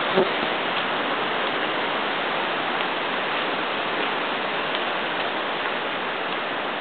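Steady, even rushing noise outdoors, with a few faint ticks; no voice or engine stands out.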